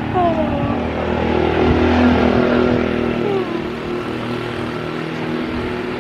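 A motor vehicle's engine running close by, loudest about two seconds in, with its pitch falling, then easing off.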